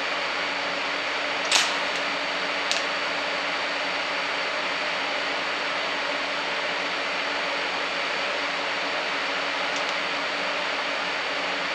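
Longevity TigWeld 250 running a straight-DC TIG weld on steel box tubing: a steady hiss with a faint hum, broken by a sharp crackle about a second and a half in and a smaller one about a second later.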